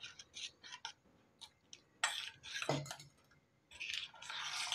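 Metal spoon beating thick besan batter in a steel bowl: faint, irregular clinks and scrapes against the bowl, with a longer wet scraping stretch near the end.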